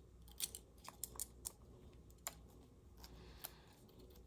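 Scattered light clicks and taps of small phone parts and hand tools being handled while a phone's logic board is fitted into a replacement screen assembly, about eight sharp ticks, most of them in the first half.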